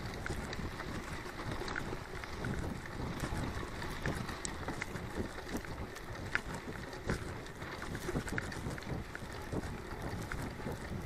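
Mountain bike rolling along a dirt forest track: tyre rumble over the ground and wind buffeting the microphone, with scattered small clicks and rattles.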